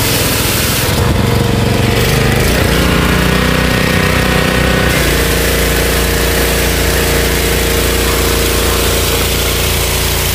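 AI-Power APW 3500 PRO petrol pressure washer running, its 223 cc engine driving the triplex pump while water sprays from the gun through the wide-fan white nozzle. The engine note shifts about halfway through, then holds steady.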